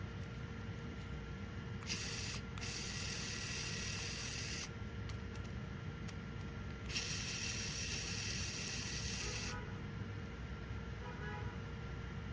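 A mini cordless electric screwdriver runs in two bursts of about two and a half seconds each, a high whirring noise from its small motor and gearing, over a steady low hum.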